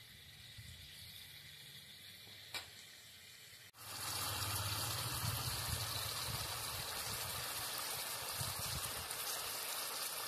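Chicken kosha frying in oil and masala in an iron wok: a steady sizzling, bubbling hiss that starts suddenly about four seconds in. The chicken is at the dry-frying stage, before the water goes in. Before that there is only faint background with a single short tap.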